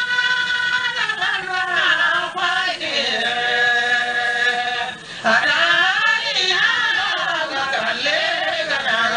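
A solo voice chanting a slow, ornamented melody, holding long notes that wind up and down, with a short break about five seconds in.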